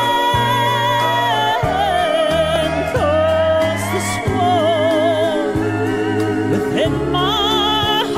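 Gospel song from a 1970s LP record: a male singer holds long, high notes, some with a wide vibrato, over a steady instrumental backing.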